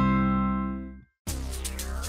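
Background music: a TV show jingle ends on a held chord that fades out about a second in. After a short silence, another piece of music begins.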